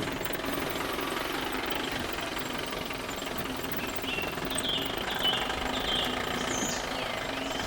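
Radio-controlled model excavator's electric gear motors running with a steady rapid clatter.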